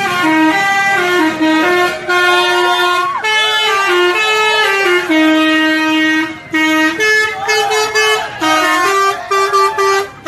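Indonesian bus 'telolet' musical horn playing a tune of held notes that step up and down in pitch, the notes growing shorter and choppier in the last few seconds.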